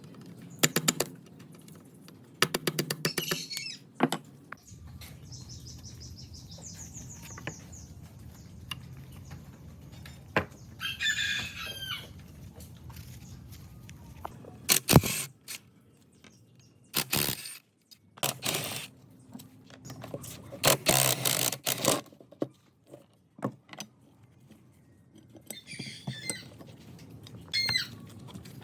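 Intermittent knocks and clatters of metal parts being handled and worked, over a low steady hum, with a few short high squeaks in the middle and near the end.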